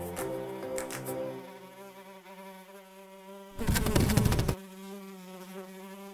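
A fly buzzing in a steady, even drone. About halfway through, a loud rough burst lasting about a second cuts in over the buzz.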